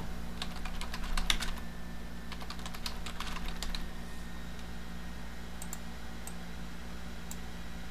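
Computer keyboard typing: two quick runs of keystrokes in the first four seconds, then a few scattered clicks.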